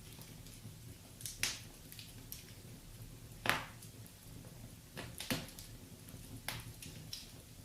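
Wood fire crackling in a fireplace: irregular sharp pops and snaps, about one every second or two, over a faint low rumble.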